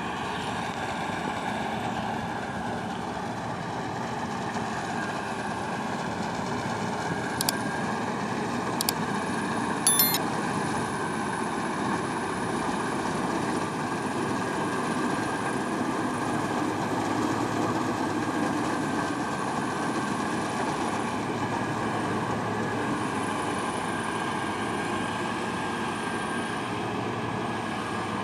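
Farm machinery running steadily, an engine drone with a steady whine from the working parts, broken by a few sharp clicks about a third of the way in.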